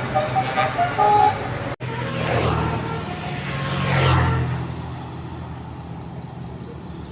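A bus's telolet horn playing a quick tune of short musical notes, which stops about a second in. Then a bus passes close: its engine swells to a peak about four seconds in and fades into distant traffic hum.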